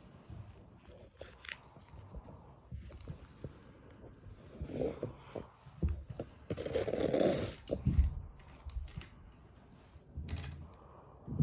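Rustling, scraping and small clicks of an inspection scope's cable being worked through a hole in a ceiling, mixed with handling noise, with a louder, longer scrape about seven seconds in.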